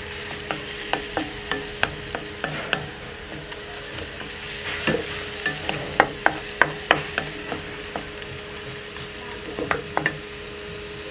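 Sliced onions and garlic paste frying in oil in a wok: a steady sizzle as the onions brown toward crisp, with a wooden spatula scraping and knocking against the pan in irregular strokes, a quick run of them about halfway through.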